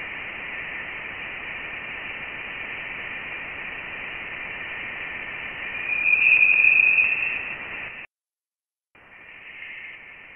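Voyager plasma-wave data turned into audio: a steady static-like hiss with a high-pitched band of tone on top. It swells louder about six seconds in, cuts out for about a second, then comes back quieter.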